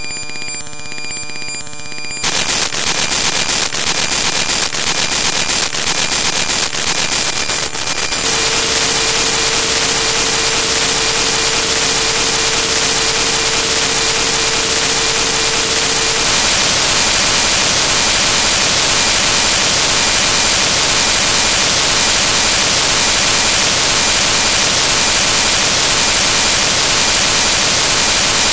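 Loud harsh static from corrupted audio data. It opens with a couple of seconds of steady buzzing tones, turns to crackling hiss, and then settles into a steady hiss with a single held tone for several seconds.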